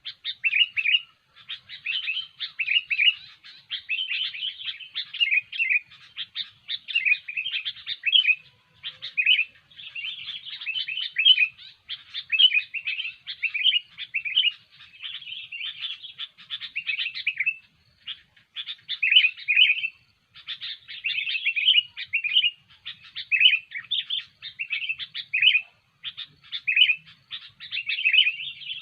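Sooty-headed bulbul (kutilang) singing vigorously: short, quick chirping phrases follow one another almost without pause, with only brief gaps.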